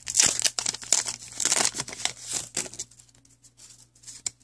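Trading-card pack wrapper being torn open and crinkled, with loud rustling crackles for about the first three seconds. Then it goes quieter, with a few faint taps as the cards are handled.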